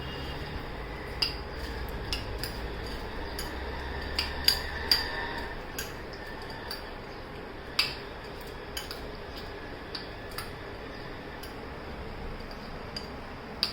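A spoon stirring and clinking against a bowl while mixing a snack of cheeseling crackers, corn and chopped vegetables: irregular clinks and taps, a few louder knocks a little after four seconds, around five seconds and near eight seconds.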